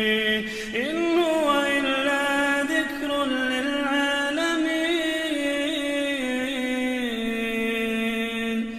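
A man reciting the Quran in a slow, melodic chanting style, drawing out a long vowel that rises about a second in, then wavers and slowly falls before the phrase breaks off near the end.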